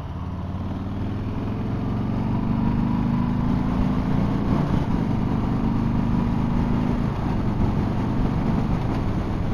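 Harley-Davidson Street Bob's Milwaukee-Eight 107 V-twin running through a Miller aftermarket exhaust under acceleration. Its note climbs gradually in pitch and loudness over the first few seconds, then levels off.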